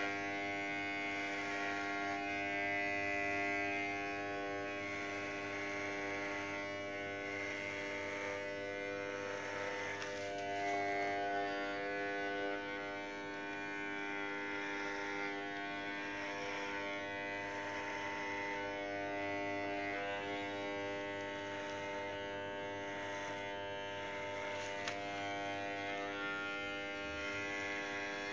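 Corded electric hair clippers running with a steady buzz as they shave a head of long hair.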